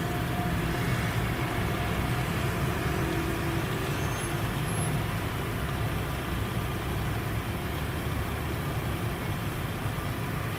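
Road traffic: a steady low rumble of vehicle engines with road noise, no siren tones heard.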